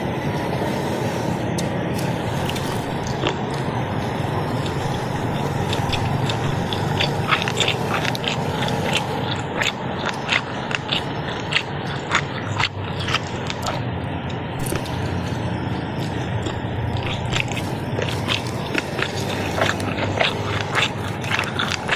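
Crusty banh mi bread being bitten and chewed close to the microphone, with many crisp crackles of the crust over a steady chewing noise.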